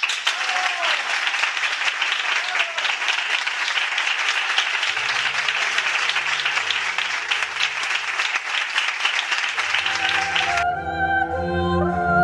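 Audience applauding steadily for about ten seconds, with music fading in underneath about halfway through. The applause cuts off suddenly and the music carries on with held notes.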